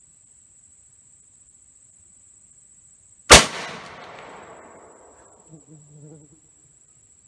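One shot from a 20-gauge single-shot shotgun firing a .60-calibre round ball over a Pyrodex black-powder charge, about three seconds in, its report echoing and dying away over about two seconds. A steady high insect buzz runs underneath.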